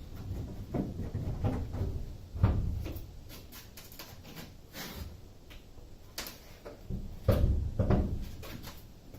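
Irregular clunks and knocks of work on a school bus's rear air-conditioner unit as it is taken down. The loudest thump comes about two and a half seconds in, with a few more near the end.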